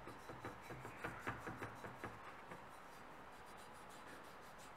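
A plastic brush scrubbing old paint off a small metal lantern part wet with paint remover: a quick run of short, scratchy strokes over the first two seconds or so, then fading out.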